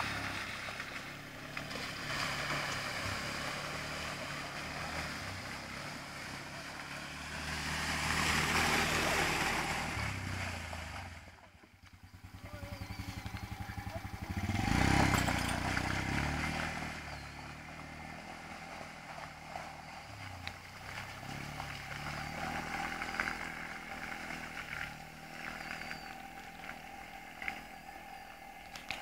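Small 80cc quad bike engine running and revving over a muddy track, its pitch rising and falling with the throttle. It grows loudest as it passes close by about halfway through, then fades as the quad rides away.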